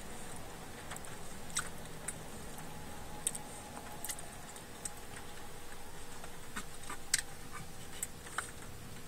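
Quiet steady background noise with faint, irregular sharp clicks scattered throughout, about a dozen in all.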